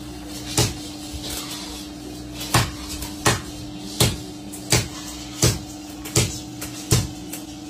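Sharp knocks at a steady pace, about one every three quarters of a second, over a continuous even hum: makhana (fox nut) popping, hot roasted seeds being struck to burst their shells.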